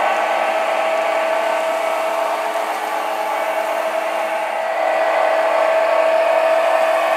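Model trains running laps on their track: a steady electric-motor whine with several fixed tones and a rolling hum. It dips a little in the middle and grows again near the end.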